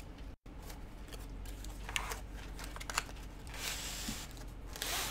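Packaging of a diamond painting kit being handled and unpacked: scattered light clicks and rustles, with two longer sliding rustles near the end.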